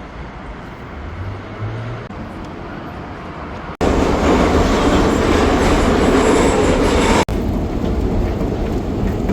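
City street ambience in three short cuts. The middle cut, from about four to seven seconds in, is taken up by a loud, steady rushing noise.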